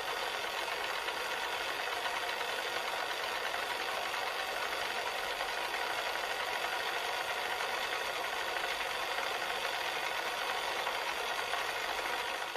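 Cassette player running steadily: an even whir of the tape transport with tape hiss, without clicks or changes.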